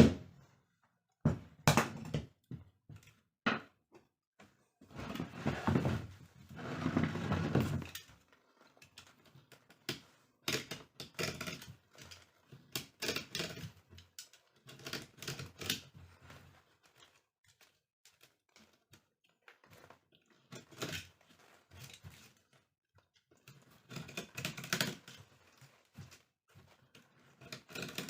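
Hand work on a rattan chair: irregular clicks, taps and knocks, with a denser rasping stretch of about three seconds near the start.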